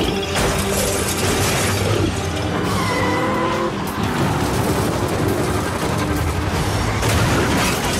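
Action-film soundtrack: score music over a military tank's tracks clanking and grinding as it crushes cars, with metal and glass crunching.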